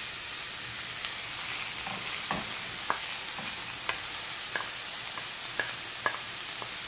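Minced meat sizzling in hot oil as it goes into a frying pan of sautéed shallots and spices: a steady frying hiss with scattered sharp pops and clicks.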